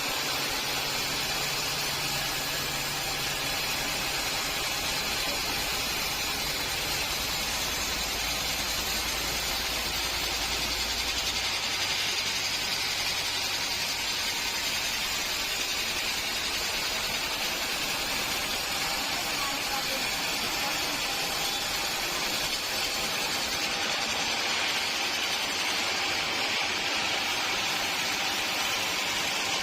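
Steady machinery noise: a continuous hiss-like din with a low hum underneath that changes about twelve seconds in.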